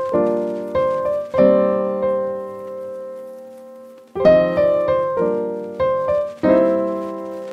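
Background music on piano: chords struck one after another, one left ringing and fading for a couple of seconds, then a further run of chords.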